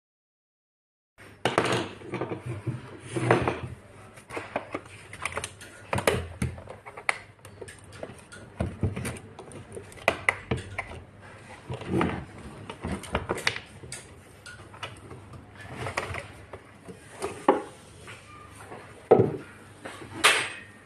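Hard plastic e-bike battery case being handled and taken apart on a wooden table: irregular clicks, knocks and scrapes of plastic parts, screws and a screwdriver, starting after about a second of silence.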